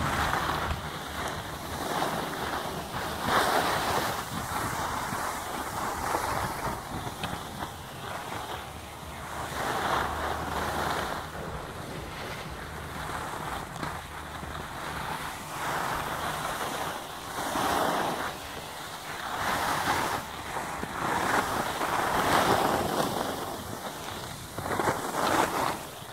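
Skis sliding and scraping over hard-packed groomed snow, a rushing hiss that swells and fades every few seconds with the turns, with wind on the microphone.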